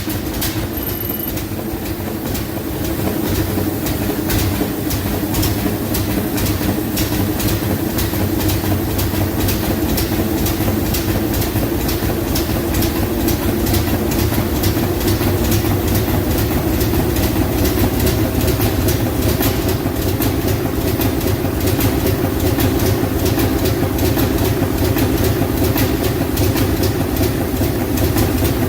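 Large engine running with a fast, even beat of strokes, getting louder over the first few seconds and then holding steady.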